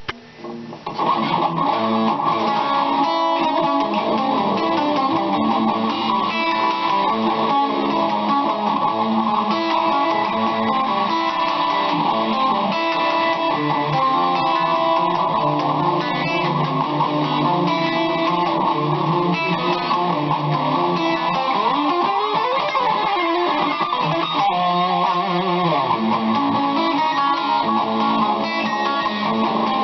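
BC Rich Mockingbird electric guitar with a Floyd Rose tremolo played continuously through an amp, with riffs and chords. The pitch swoops down and back up about 22 to 25 seconds in.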